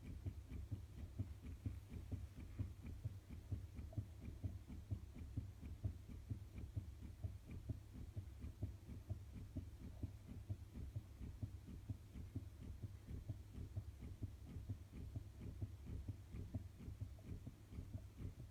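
Fetal heartbeat picked up by a Doppler heart monitor: a fast, regular pulsing at about two beats a second.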